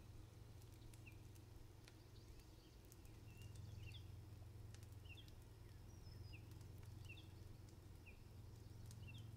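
Quiet woodland ambience: short, high bird chirps about once a second over a faint, steady low hum.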